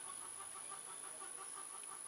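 Outdoor animal chorus: many short chirping calls repeating rapidly and continuously, over a thin steady high-pitched tone.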